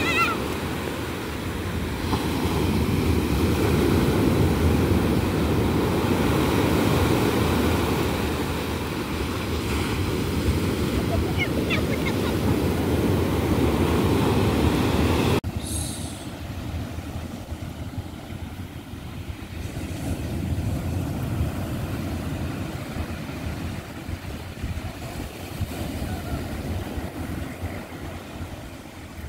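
Sea waves breaking and washing up a sandy beach: a steady rushing noise that swells and eases with each wave. About halfway through it drops suddenly to a quieter surf.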